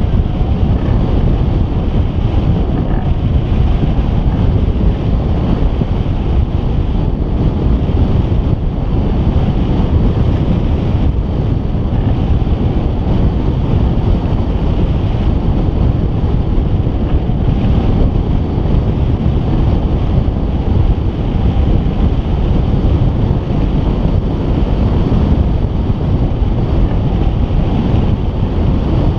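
Airflow of a hang glider in flight buffeting the microphone of a camera mounted on the glider: a steady, loud rush of wind.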